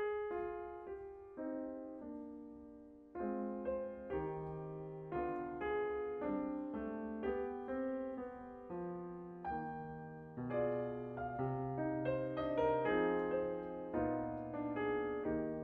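Grand piano playing a classical passage alone, each note or chord struck sharply and left to ring away, about two or three a second.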